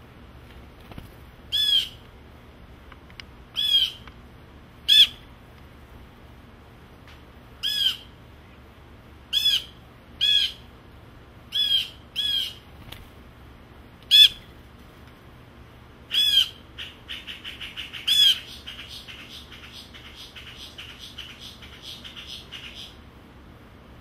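Blue jay calling about eleven times, single loud calls one to three seconds apart, scolding a cat. In the last third a fast run of softer repeated notes goes on for several seconds.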